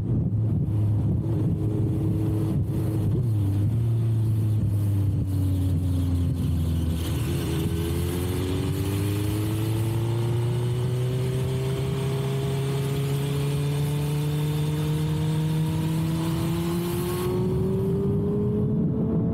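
Suzuki GSX-R1000R's inline-four running through a Yoshimura exhaust while riding. The note drops for a few seconds as the bike eases off, then climbs slowly and steadily from about seven seconds in as it accelerates through the gear.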